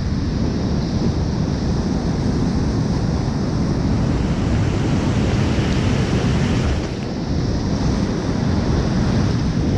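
Whitewater rapids of a creek in high flood, rushing loudly and steadily around a kayak running them. The rush turns brighter and hissier for a few seconds around the middle, then eases briefly.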